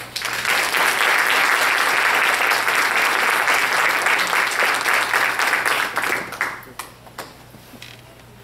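Audience applauding: many people clapping together for about six seconds, then thinning to a few last separate claps.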